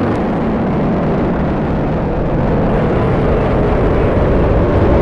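Falcon 9 first stage's nine Merlin engines roaring during ascent: a loud, steady rumbling roar heavy in the low end.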